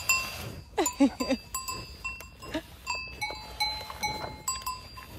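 Cowbells worn by cows clanking irregularly, each strike ringing on with a steady tone. A few short sounds that bend in pitch come about a second in.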